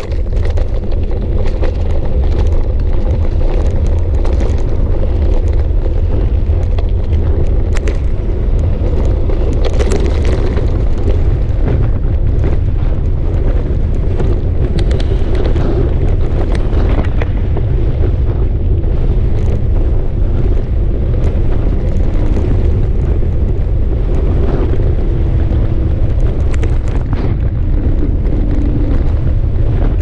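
Steady, loud low rumble of wind buffeting a bicycle-mounted GoPro's microphone as the bike rolls along a dirt and gravel track, with frequent small clicks and rattles from the tyres and bike over the rough surface.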